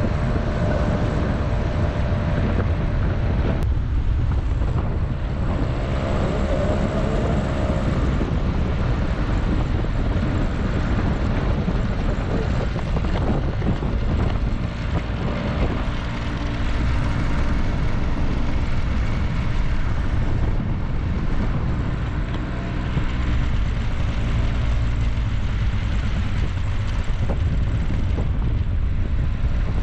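Motorcycle engine running at a steady cruise, under heavy wind rush on the microphone.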